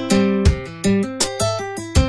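Background music: a plucked guitar melody, notes struck several times a second, each ringing briefly and fading.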